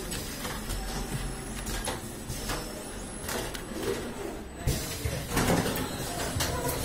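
KTK automatic screen printing machine running, with scattered mechanical clicks and a louder stretch of noise about five seconds in.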